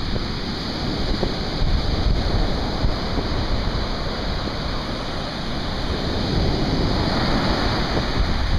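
Surf breaking and washing up a sandy beach, a steady rushing noise, with wind buffeting the microphone.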